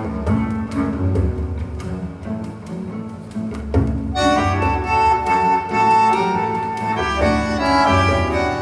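Recorded music with bowed strings over a deep bass line, played back through Verity Audio loudspeakers. About four seconds in, brighter, higher parts come in over it.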